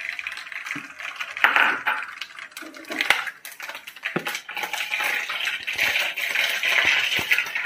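Mustard seeds sizzling and crackling in hot oil, many small pops over a steady sizzle that grows busier toward the end as the seeds start to splutter.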